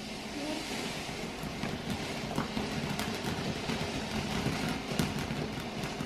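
Ground firework fountain spraying sparks with a steady hiss that builds over the first second, with a few sharp crackles mixed in.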